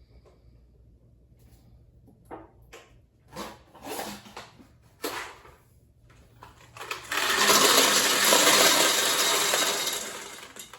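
Loose candy being poured into a bulk candy vending machine: a few scattered clicks and rattles, then a loud rushing pour of many small hard pieces lasting about three seconds.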